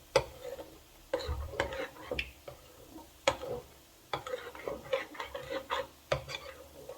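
A spoon stirring thick ground black-eyed bean batter in a bowl, with irregular clicks and knocks of the spoon against the bowl.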